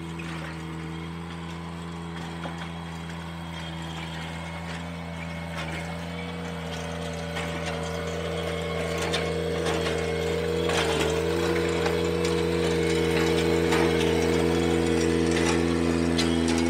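Ventrac 4520Z compact tractor's engine running steadily while its power rake churns gravel, growing louder as the machine comes closer. Scattered clicks of stones are thrown up by the rake, thickest past the middle, where the engine briefly dips under load.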